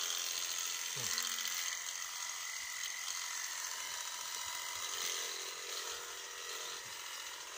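Electric sheep-shearing handpiece running with a steady high buzz as it cuts through fleece. About a second in there is one short falling vocal sound.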